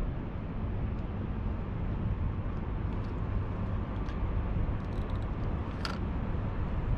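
Steady low outdoor rumble with a few faint clicks, one a little clearer near the end.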